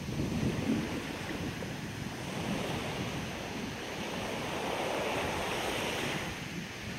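Small waves washing up and sliding back on a sandy beach, one wash swelling and fading from about four to six and a half seconds in. Wind rumbles on the microphone in the first second or so.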